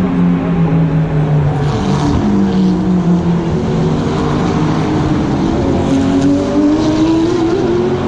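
GT race car engine heard from onboard. Its note falls as the car slows, stepping up at downshifts in the first three seconds, then climbs steadily as it accelerates.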